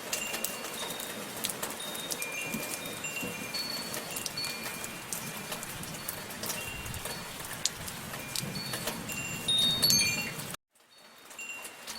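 Wind chimes ringing in scattered high notes over a steady patter of rain. About ten and a half seconds in, everything cuts out abruptly for a moment; the chimes come back with the rain much fainter.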